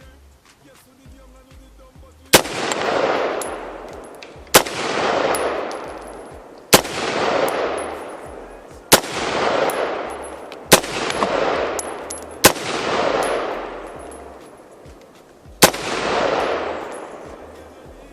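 Smith & Wesson M&P15 Sport II AR-15 rifle fired seven times in slow semi-automatic succession, roughly one shot every two seconds, each crack followed by a long rolling echo. The rifle cycles and feeds without a jam after its bolt was replaced for failure-to-feed problems: so far, so good.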